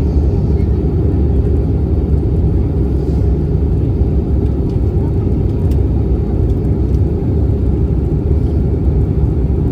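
Steady, even low rumble of an Airbus A321-200 airliner's engines and airflow, heard inside the passenger cabin.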